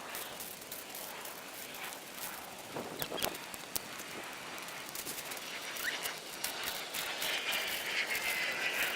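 Dry twigs and branches being handled and snapped to lay a small campfire: many small crackling clicks, with a couple of sharp snaps about three seconds in. A short bird chirp is heard about six seconds in.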